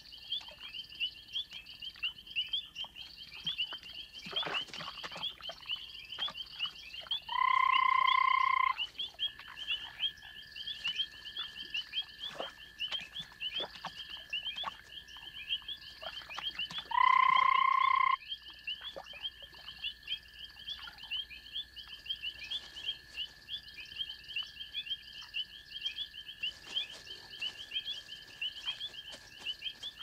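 Night chorus of frogs: continuous rapid chirping, with a steady high trill joining about nine seconds in. Twice, some ten seconds apart, a louder call holds one steady pitch for about a second.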